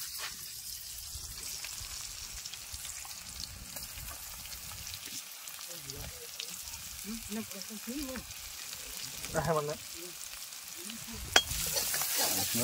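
Food sizzling as it fries in a wok over a wood fire, with a steady hiss and a sharp tap on the pan about eleven seconds in. The sizzle grows louder near the end as a hand works the pan.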